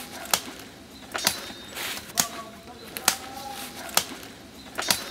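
Sharp knocks repeating at a steady beat of about one a second, with smaller knocks between, some followed by a brief ringing tone.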